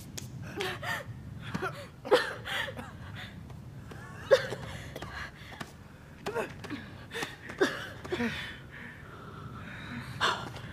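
People gasping and breathing hard in a string of short breaths, with a few sharp knocks between them.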